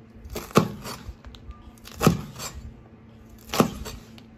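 Chinese cleaver chopping a bundle of long green beans into short lengths on a bamboo cutting board: three sharp chops about a second and a half apart, each a crunch through the beans and a knock of the blade on the board.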